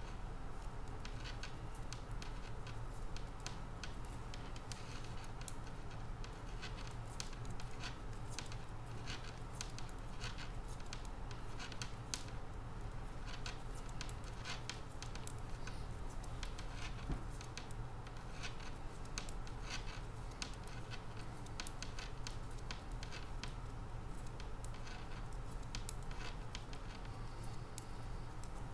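Metal knitting needles clicking and scraping against each other as a row of knit stitches is worked in wool, in many small, irregular ticks, over a steady low hum.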